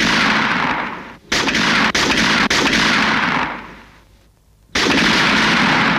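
Gunfire sound effects: three loud bursts, each starting sharply and dying away over a second or two, the middle one with several separate cracks in it.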